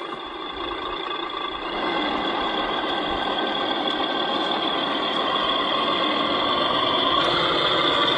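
A heavy vehicle's engine running steadily, its pitch rising slightly about seven seconds in.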